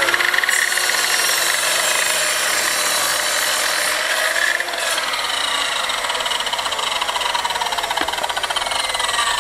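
Electric mitre saw running and cutting through an old reclaimed timber beam, its motor whine shifting in pitch as the blade works through the wood.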